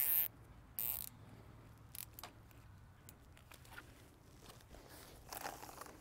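Plastic cable tie zipped tight through its ratchet head, two quick rasping pulls at the start, then a few faint clicks and light rustling.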